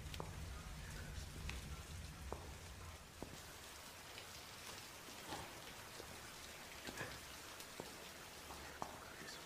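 Steady rain falling, with scattered drips and splashes. A low rumble underneath fades out about three seconds in.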